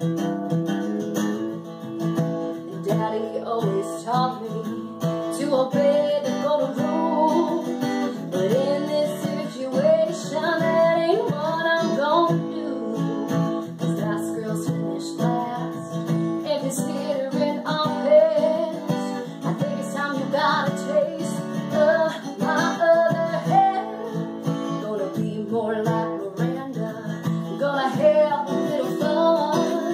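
Country song: a strummed acoustic guitar with a woman singing over it.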